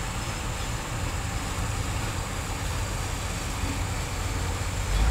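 Heavy diesel mining machinery running with a low, steady rumble that grows louder near the end.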